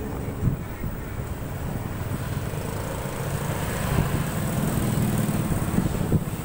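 Motorbike engine and road rumble heard from a moving motorbike, with other motorbikes running around it in street traffic.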